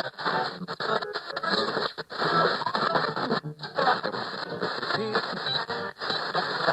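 Radio static with snatches of music breaking through, thin and muffled as over a radio, cut off abruptly several times as if tuning between stations.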